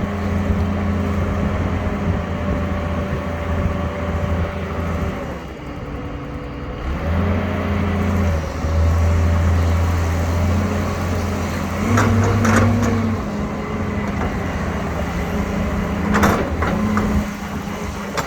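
Excavator's diesel engine running steadily under work. It eases off briefly about a third of the way through, then picks back up, with a few sharp knocks in the second half.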